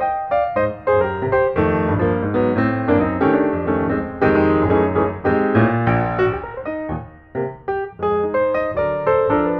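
Piano music, a quick busy run of notes, with a short break about seven seconds in.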